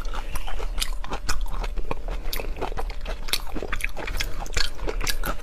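Close-miked eating sounds: wet, irregular biting and chewing with small crunches, as of raw rice-wine-marinated shrimp being eaten.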